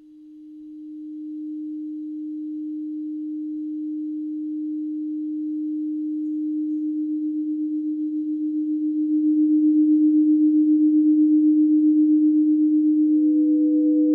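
Ambient electronic drone: a single pure, steady tone fades in from silence and slowly swells louder, taking on a slow pulsing partway through, and a second, higher tone joins near the end.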